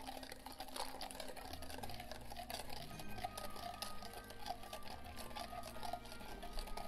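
Wire whisk rapidly clicking and scraping against a stainless steel mixing bowl as egg yolks are whisked, tempering them with hot milk poured in.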